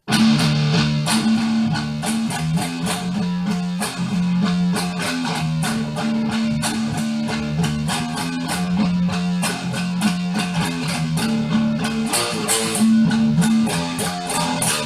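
Electric guitar played through an amp on its distortion channel with gain and treble at maximum and mids and bass at zero, giving a high-gain, scooped metal tone. It plays rapidly picked notes over steady low notes.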